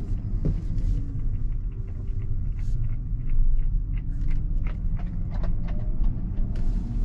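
Low road and tyre rumble inside the cabin of a Tesla Model X, an electric car, rolling along a country lane, with scattered faint ticks and a faint whine that glides in pitch.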